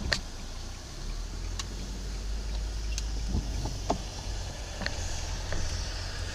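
Car engine and road noise heard from inside the cabin: a low rumble that rises about a second in as the car pulls away from a standstill. A few sharp clicks are scattered through it.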